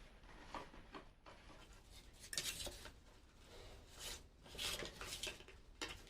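Hand-working noises from building a cardboard speaker box: irregular scraping and rubbing with a few light clinks, busiest about two and a half seconds in and again around four to five seconds.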